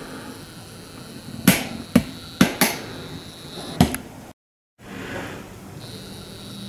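Handling noise: five sharp clicks and knocks over about two and a half seconds, the loudest first, over a steady low hum. The sound drops out completely for half a second just after the fourth second.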